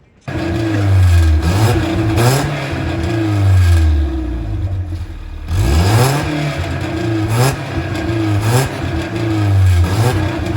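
Datsun engine revving through a newly fitted exhaust pipe, the throttle blipped again and again so the pitch rises and falls; it comes in suddenly just after the start.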